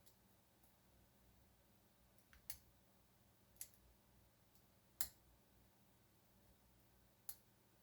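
Lock pick and tension wrench working in a Master Lock No. 3 padlock during single-pin picking: scattered sharp metal clicks, about four clear ones with a few fainter between, the loudest about five seconds in.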